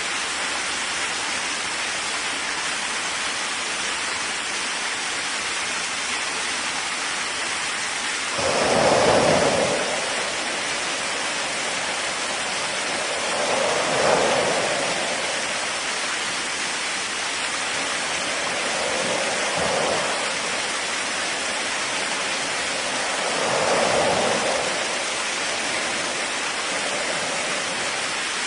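Steady rain falling, with four short rolls of thunder about five seconds apart, the first, about a third of the way in, the loudest.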